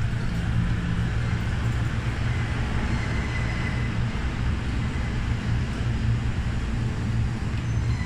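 Steady low hum and noise inside a Tokyo Metro 05 series subway car standing at the platform at the end of its run.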